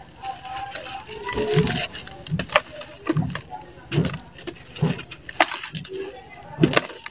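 Balls of dry red dirt crumbled by hand over a basin of water: gritty crunching and crackling as the clumps break, with pieces and dust dropping into the water in a run of plops about once a second.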